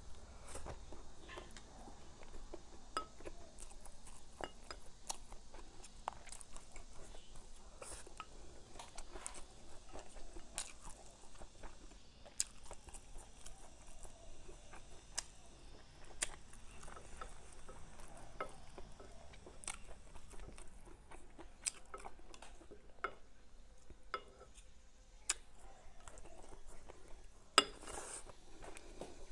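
Close-up eating sounds: chewing and crunching mouthfuls of rice with stir-fried pickled greens, bamboo shoots and diced cured pork, with many short clicks of wooden chopsticks against a porcelain rice bowl, the sharpest one near the end.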